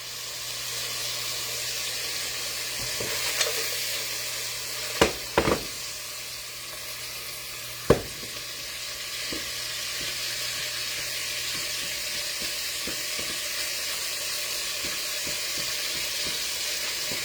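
Lamb chops sizzling in hot oil in a frying pan: a steady frying hiss, with a few sharp clicks about five seconds in and again near eight seconds.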